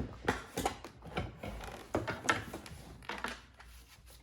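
Toy packaging being cut and handled: irregular clicks, snips and rustles of cardboard, plastic and tape, growing sparser toward the end.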